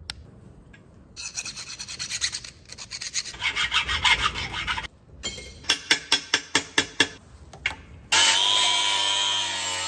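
Hand scraping and filing strokes, metal on metal, as the MIG welding torch's tip and nozzle are cleaned and refitted, quicker and sharper for a few seconds past the middle. About eight seconds in, a loud steady hiss with a faint whine cuts in as the MIG welder starts.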